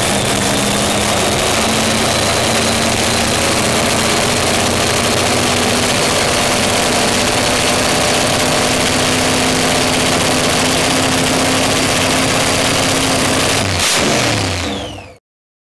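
A car engine idling steadily, with a brief change in its note near the end before the sound cuts off.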